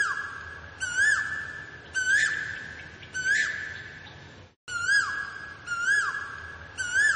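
Asian koel calling: a series of loud whistled notes about once a second, each sliding up and then dropping. The sound cuts out briefly about halfway through, then the calls carry on.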